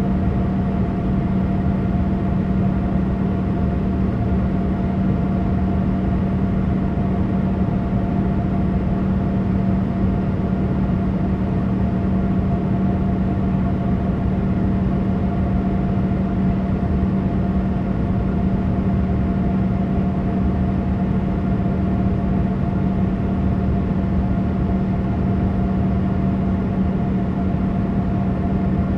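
Steady cabin drone of a Boeing 787 airliner, an even rush with a constant low hum and a fainter higher tone, unchanging throughout.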